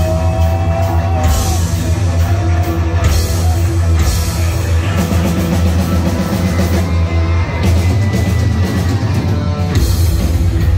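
A heavy metal band playing live, loud: distorted electric guitars holding notes over bass and a drum kit.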